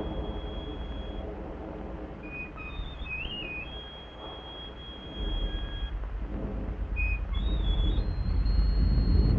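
High, thin whistling tones that hold and step between a few pitches, over a low rumble that grows louder about halfway through.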